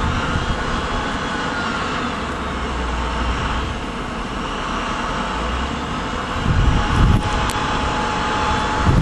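Heavy truck engine running steadily, its low rumble growing louder about six and a half seconds in.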